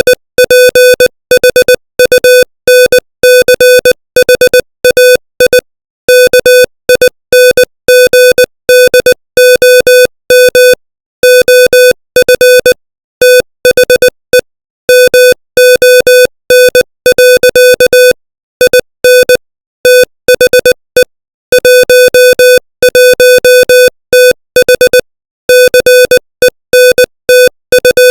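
Morse code sent at 20 words per minute as a single beep tone near 500 Hz, keyed on and off in quick short and long elements. The run of dots and dashes is broken by longer pauses between words.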